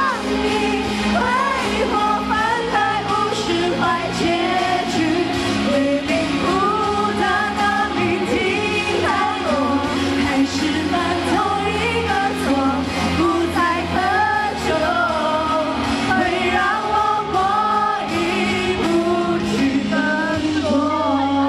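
A woman singing a Chinese-language pop song live into a handheld microphone, with steady band accompaniment and bass under her phrased melody.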